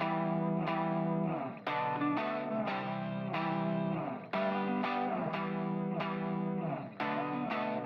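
Background music: a repeating guitar-led tune with strummed chords in short phrases.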